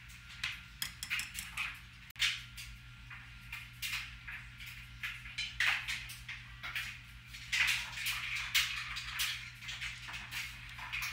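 A metal whisk scraping and clinking against a saucepan of thick béchamel sauce. About two seconds in this gives way to irregular clinks and scrapes of the saucepan as the sauce is poured out.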